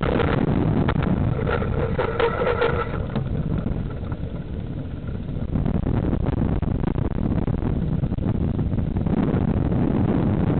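Steady wind buffeting and road rumble on a small camera mounted low on a fixed-gear bicycle's frame while it is ridden, with scattered light clicks and knocks. A wavering tone sits over the rumble for the first three seconds.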